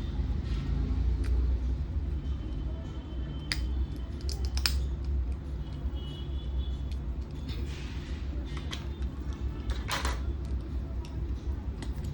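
A steady low rumble underneath, with a few sharp clicks and taps from handling on an electronics repair bench: one about a third of the way in, a quick pair soon after, and a louder one near the end.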